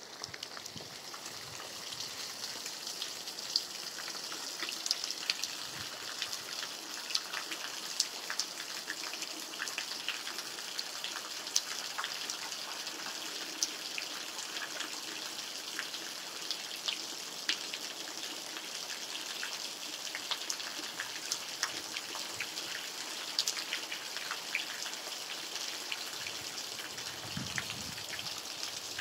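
Steady rain: an even hiss with many separate drops ticking sharply through it.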